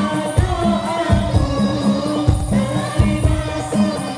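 A boy's voice singing an Islamic devotional song (sholawat) into a microphone with a group of male singers, over hadrah frame drums beating a steady rhythm.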